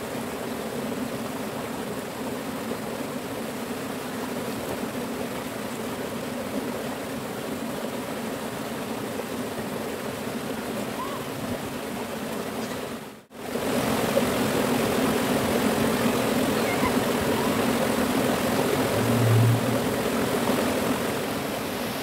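Shallow river water rushing steadily over rocks in small rapids. The sound breaks off for an instant a little past halfway and comes back slightly louder.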